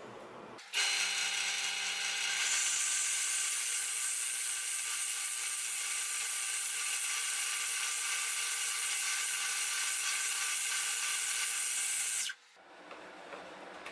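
Bench drill press running a small milling bit that cuts sideways into a lock body, a steady motor whine over a high hiss. It starts suddenly just under a second in and cuts off suddenly near the end.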